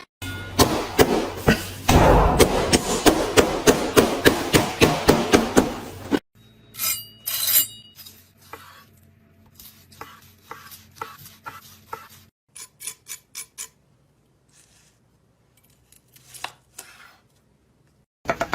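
Kitchen food sounds in three separate clips: first a fast, dense run of loud clinks and crunchy chopping strokes, then sparser crisp clicks and crunches over a faint hum, then scattered single clicks with short silences between.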